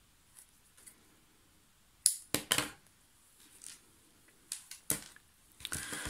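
A pair of scissors picked up and handled on a tabletop: a few sharp clicks and knocks in two clusters, separated by quiet stretches.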